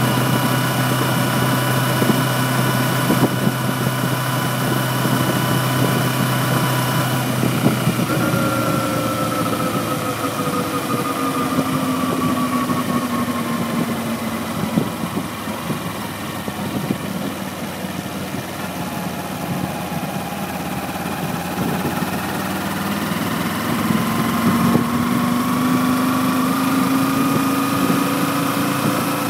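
Kawasaki Ninja 250R's parallel-twin engine running on the move. Its note holds steady at first, slides down in pitch after about eight seconds, then climbs again over the last few seconds.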